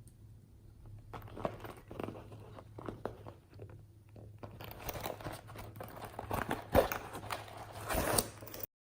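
Slime being pressed and worked by hand, with irregular crackling and sharp popping clicks that grow denser and louder. The sound cuts off abruptly just before the end.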